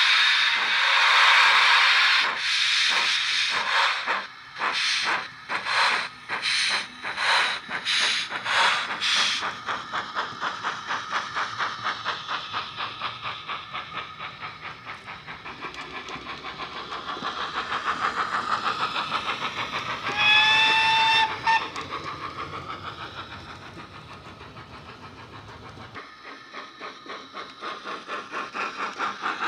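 Steam locomotive sounds from a Wheeltappers sound project on the DCC decoder of a Dapol GWR Mogul model, played through a small boiler speaker and a bass-enhanced tender speaker. A steady hiss of steam, then exhaust chuffs that start slow and quicken into a fast beat as the loco pulls away. A whistle blast of about a second comes about two-thirds through, and the chuffing fades, then grows again near the end.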